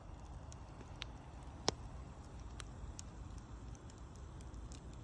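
Wood fire crackling: scattered sharp pops and snaps over a low steady rumble, the loudest pop about a second and a half in.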